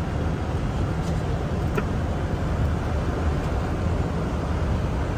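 Steady rushing noise of airflow and engines inside a Boeing 747-400 flight deck on approach, heaviest in the low range.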